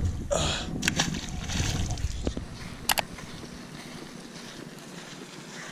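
Wind rumbling on the microphone, with a few sharp clicks; the rumble dies down after about three seconds.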